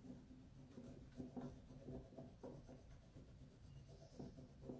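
Faint, quick, irregular scratchy strokes of a rubbing stick burnishing a rub-on décor transfer onto a wooden drawer side.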